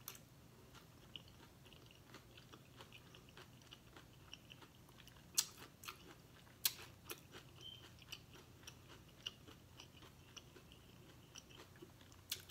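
A person chewing a mouthful of taco: soft, irregular mouth clicks, with a few sharper clicks in the second half.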